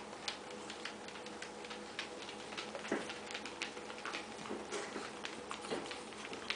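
Shih Tzu puppy playing with a plush toy on a blanket: quick, irregular small clicks and rustles of chewing, pawing and fabric moving, over a faint steady hum.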